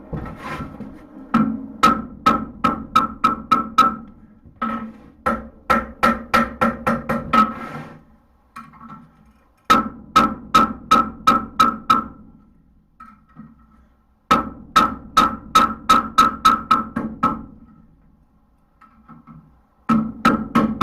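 Blacksmith's hammer striking hot steel on an anvil in runs of quick blows, about four a second, each blow with a ringing note. The runs are broken by short pauses of a second or two, as the piece is reshaped.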